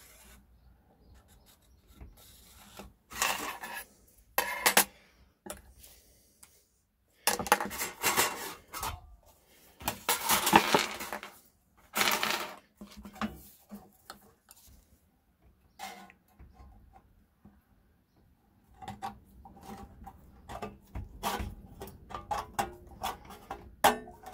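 Tin snips cutting a thin sheet of metal, with the sheet clattering on the table: separate bursts of cutting and rattling, then a quick run of short clicks and snips near the end.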